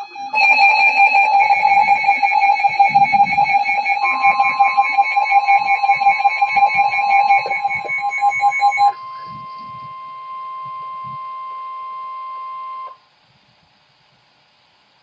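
Emergency Alert System alert tones heralding a flash flood warning. A loud, rapidly pulsing electronic beep sounds for about nine seconds, joined from about four seconds in by a steady tone that holds on alone and cuts off abruptly about thirteen seconds in.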